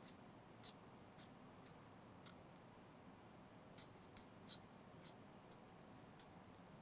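Faint writing on paper: a dozen or so short, scratchy strokes in irregular bursts, busiest a little past the middle.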